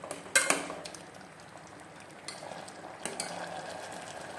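A steel spoon clinks against the aluminium pressure cooker a few times in the first second, and once more near 3 s. Beneath it, lauki and chana dal simmer in the open cooker over the gas flame, a steady bubbling as the curry cooks down to dry off its water.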